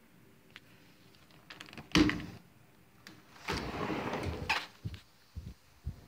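A sliding patio door being opened: a sharp knock about two seconds in, the loudest sound, then about a second of the door rolling along its track. Soft low thumps follow near the end.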